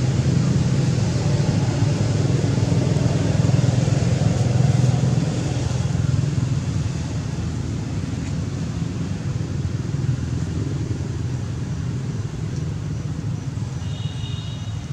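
Low, steady rumble of a motor vehicle's engine, louder for the first five or six seconds and then slowly fading. A brief high-pitched squeak sounds near the end.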